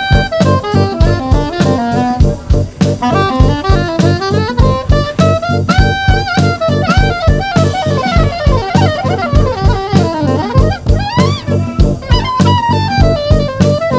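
Background jazz music: a saxophone-like lead melody over a drum kit with a steady beat.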